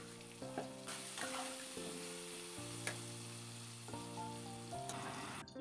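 Cut potatoes frying in hot oil in a kadai, a steady sizzle with a few sharp knocks of the spatula as they are stirred, over soft background music; the sizzle cuts off near the end.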